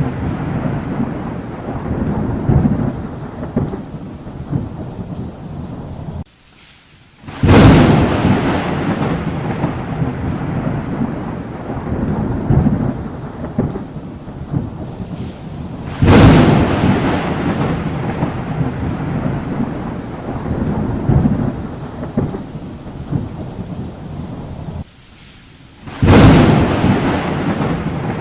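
Thunderstorm: three sudden thunderclaps roughly nine seconds apart, each rolling off into a long, low rumble, over steady rain. Before the first and third clap the sound briefly drops away for about a second.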